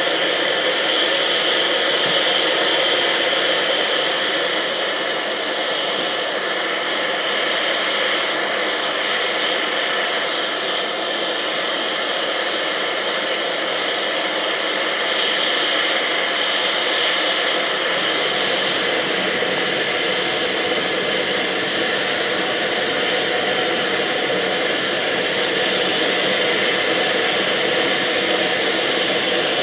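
Steam escaping from the LNER V2 steam locomotive Green Arrow: a loud, steady, unbroken hiss with no chuffing beat.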